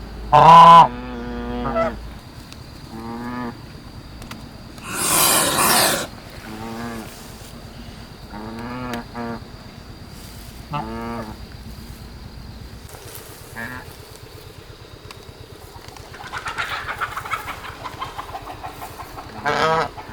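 Domestic geese honking: a series of short, nasal, pitched calls, loudest just after the start, with a harsher, noisier call around five seconds in.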